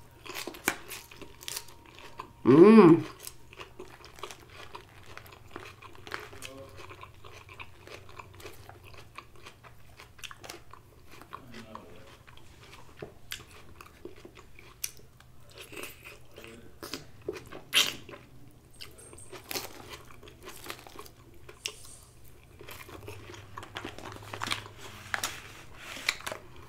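A person chewing a forkful of crisp lettuce salad: crunching and wet mouth clicks go on throughout, with a short hummed vocal sound about three seconds in.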